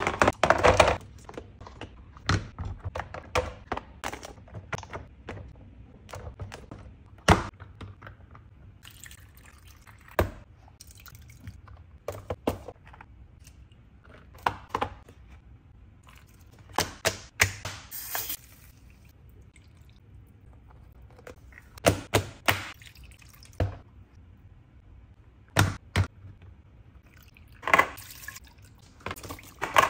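Plastic and silicone ice cube trays being handled and set down on a counter, with liquid poured from a bottle and from a glass into the tray cells. There is a string of sharp taps and knocks, with splashing and trickling between them.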